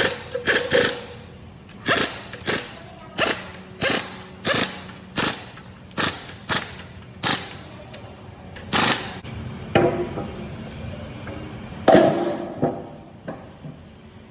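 Hand tools working on diesel engine parts during reassembly: a run of sharp metallic strokes, about one or two a second, each ringing briefly, with a louder clank about twelve seconds in.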